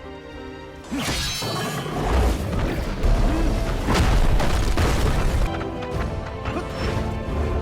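Action film soundtrack: music held soft for about a second, then loud, with crashes and heavy impacts of the fight effects.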